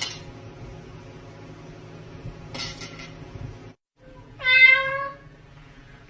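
A cat gives one loud, drawn-out meow about four and a half seconds in, sliding slightly down in pitch. Two short hissing noises come before it, at the start and about two and a half seconds in.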